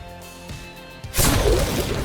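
Background music with quiet held notes, then a sudden loud rushing noise a little over a second in that carries on.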